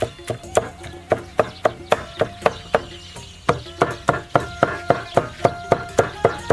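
Chinese cleaver mincing cooked meat on a thick round wooden chopping board: quick, even chops at about three to four a second, with a brief pause about halfway through.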